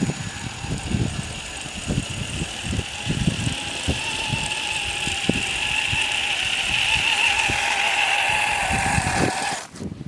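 Electric RC truck's 550 motor and transmission whining steadily as the tracked truck runs, cutting off suddenly near the end, with irregular low thuds underneath.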